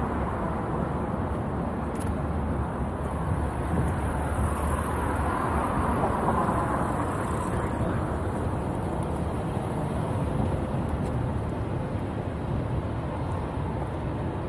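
Steady city street noise with traffic and a constant low rumble, heard from an electric unicycle rolling along a downtown sidewalk.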